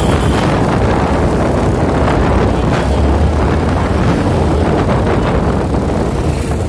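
Loud wind buffeting the microphone over the rumble and road noise of a moving vehicle, steady throughout.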